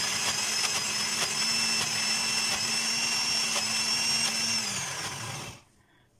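Countertop blender motor running steadily at high speed, grinding gingerbread into crumbs. About four and a half seconds in it is switched off and its whine falls in pitch as it winds down to a stop.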